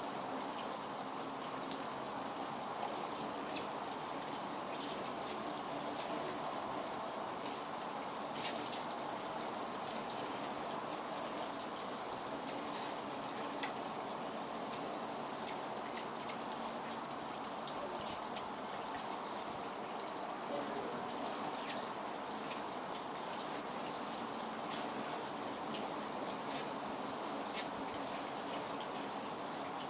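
A steady high-pitched trilling of crickets or other insects, with hummingbirds at a feeder giving scattered faint chips and a few sharp, falling squeaky chirps: one about three and a half seconds in and two close together around twenty-one seconds.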